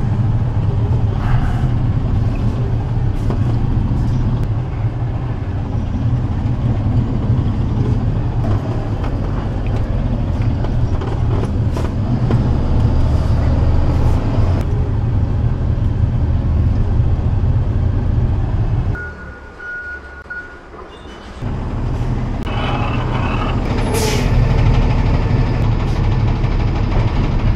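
Box truck on the move: a steady low engine and road rumble. It drops away for a couple of seconds about two-thirds through, while a short steady tone sounds, and a brief sharp hiss comes near the end.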